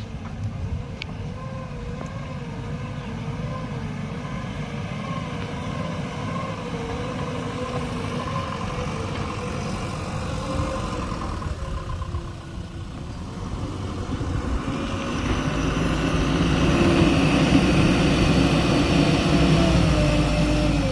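A heavy vehicle's engine running, growing louder about two-thirds of the way through. A wavering, siren-like tone rides over it during the first part.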